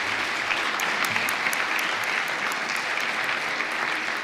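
Audience applauding steadily, a room full of seated listeners clapping.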